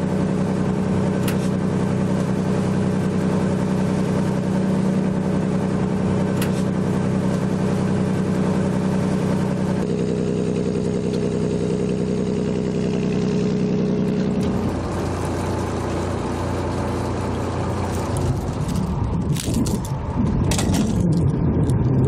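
A fishing boat's engine runs steadily under way, a low hum with water rushing past the hull. Its note changes about ten seconds in and again near fifteen seconds, and a few sharp clicks come near the end.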